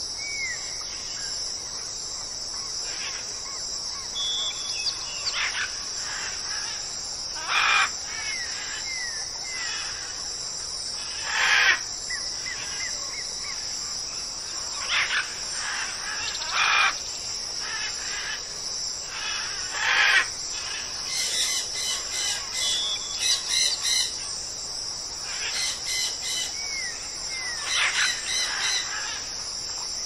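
Birds calling in a forest ambience: short, loud calls every few seconds and a few brief whistled notes, over a steady high insect drone.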